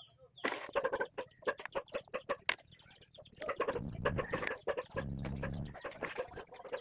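A chicken clucking in a quick run of short notes for a few seconds, then low rustling handling noise as the soil-filled basin is moved.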